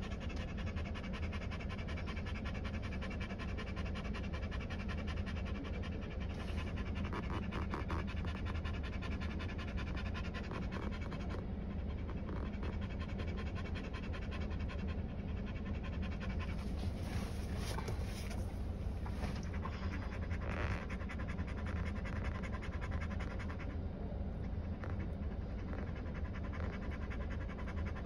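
A dog panting rapidly and steadily close to the microphone inside a car cabin, over a low steady hum.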